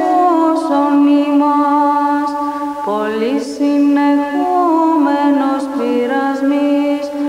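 Background music: a solo voice chanting slowly in long held notes that step and glide between pitches.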